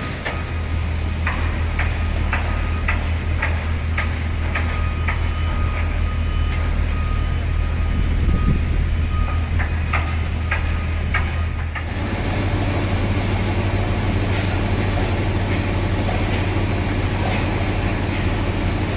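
Dry-dock work noise: machinery runs with a steady low drone under a string of sharp knocks. About twelve seconds in it changes suddenly to a broader, hissing noise.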